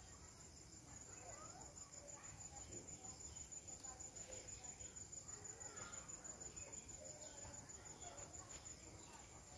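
Faint, steady high-pitched chirring of crickets.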